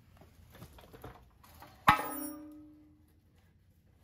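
A single sharp metallic clang about two seconds in, a metal part or tool struck or set down, ringing out for about a second. A few faint small taps and clicks come before it.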